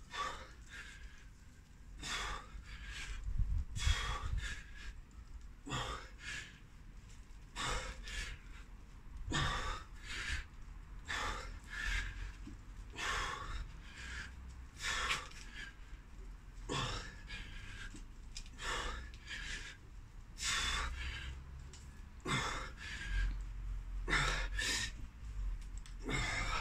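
A man breathing hard and forcefully through a set of single-arm kettlebell reps, with a sharp breath on each rep roughly once a second.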